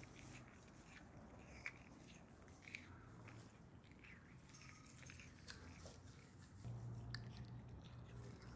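Two-toed sloth biting and chewing a piece of green vegetable: faint, scattered crunches, a few in all, over a low steady hum.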